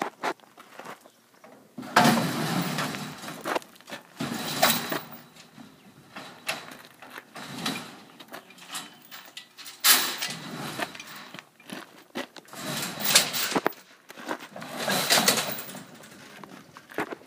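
Irregular clanking and scraping of a camper's metal wheelchair-lift platform and steps as they are handled and folded out, in several separate bursts with pauses between.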